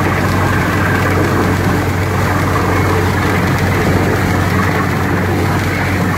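Borehole drilling rig's engine running steadily with a low, even drone while muddy water gushes out of the new well.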